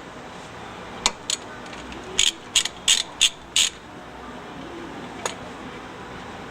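Ratchet wrench clicking in short bursts of strokes: a couple of clicks, then a quicker run of five, then one more.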